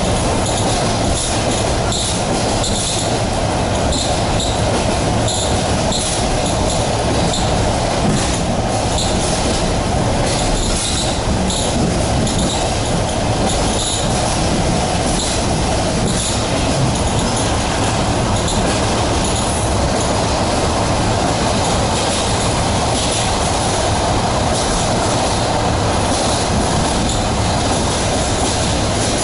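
ED4MK electric multiple unit running at speed, heard from aboard: a steady rumble of wheels on rails, with frequent short high squeaks and clicks from the wheels.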